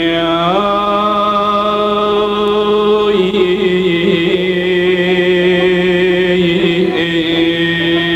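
Kurdish song: a male singer holds long, drawn-out notes with a slight waver, the pitch stepping up about half a second in.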